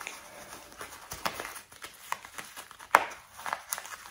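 Backpack chest-strap buckle and webbing being handled: fabric rustling with a few sharp plastic clicks, the loudest about three seconds in.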